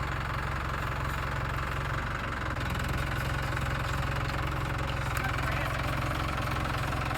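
Engine of a front-end loader running steadily at a low, even pitch, as it works to raise a log beam.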